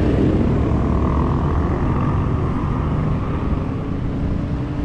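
Wind rushing over the microphone of a camera riding along on a moving bicycle, a steady low rush; a faint steady hum joins it about halfway through.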